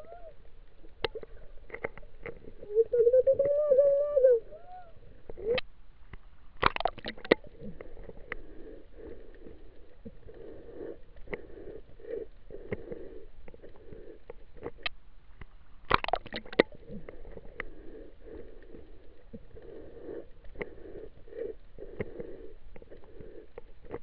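Muffled underwater sound of shallow sea water surging around a submerged camera, with scattered sharp clicks and knocks. About three seconds in, a louder pitched tone rises and falls for about a second and a half.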